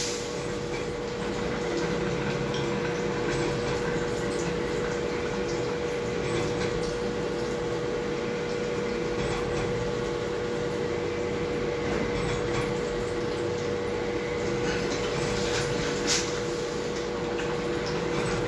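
CNC machining centre drilling a metal part under flood coolant: the spindle runs with a steady tone while the drill cuts and coolant splashes over the work. A brief louder rush comes about sixteen seconds in.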